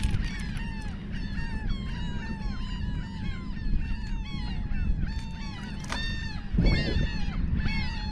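Birds calling over and over, many short downward-sliding calls overlapping several times a second, over steady wind noise. There is a brief rustle about two-thirds of the way in.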